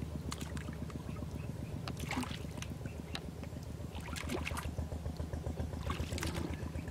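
Hands splashing and squelching in shallow muddy water while groping through the mud for fish, in short bursts about two, four and six seconds in, over a steady low motor drone.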